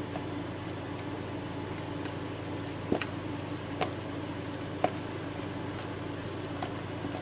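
Steady hum of an induction cooktop heating an enamelled cast-iron pot, with a few light clicks about three, four and five seconds in.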